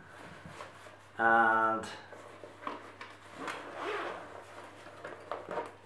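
Zip of a fabric carry bag being drawn open, with rustling and rubbing of the cloth as it is handled. A drawn-out spoken 'and' about a second in is the loudest sound.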